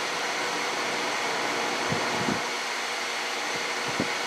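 Steady whirring of a fan or motor, with a few faint light clicks of small metal measuring tools being handled, about two seconds in and again near the end.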